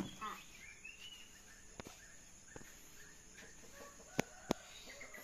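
Chickens clucking faintly, with two sharp clicks close together near the end.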